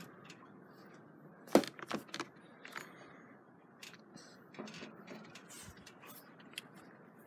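A few light clicks and taps from hands working over a metal pizza peel and prep table, over faint steady background noise. The sharpest click comes about a second and a half in, with a quick cluster just after it and scattered lighter ones later.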